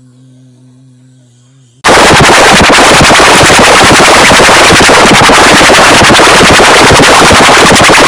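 A faint low hum, then about two seconds in a sudden jump to an extremely loud, overdriven, clipped blast of noise full of rapid crackling that keeps going.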